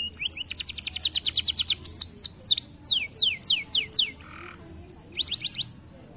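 Domestic canary singing: a fast trill of rapid falling whistled notes, about a dozen a second, then slower sweeping notes. The song breaks off briefly about four seconds in, gives one more short trill, and stops near the end.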